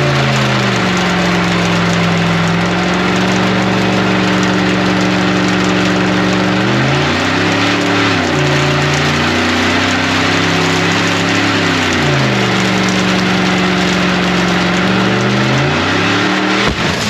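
6.0 Vortec V8 of a 2500HD pickup held at high revs during a tyre-smoking burnout, with the spinning tyres hissing underneath. The revs sag and climb again a few times, and near the end the sound breaks off abruptly.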